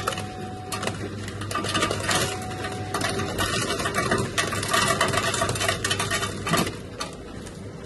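Ice cubes from a drink-station ice dispenser clattering into a plastic cup, a rapid rattle of many small knocks over a low hum that stops near the end.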